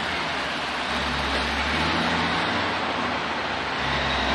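Road traffic crossing a steel-truss lift bridge: cars' tyre and engine noise as a steady rush, with an uneven low rumble underneath.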